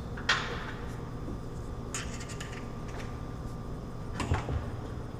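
A sharp clack from a kitchen cabinet door being handled, then a few faint clicks and light knocks over a low steady hum.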